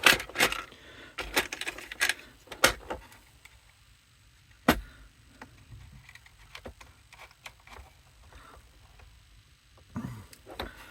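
Clicks and rattles of small hard accessories being handled while a bit is fitted into a rotary tool: a run of sharp clicks in the first three seconds, one loud click near five seconds, then only faint handling.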